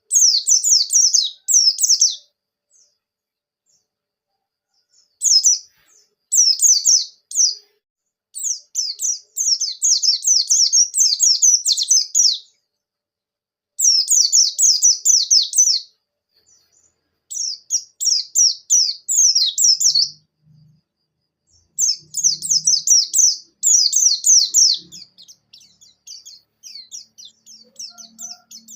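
White-eye (pleci buxtoni) singing: bouts of rapid, high twittering notes, each a second to four seconds long, separated by brief silences.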